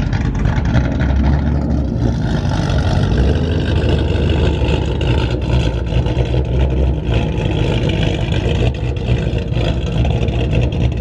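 Ford Mustang GT's 5.0-litre V8 running loud through its exhaust while parked, with the revs rising and falling a couple of times.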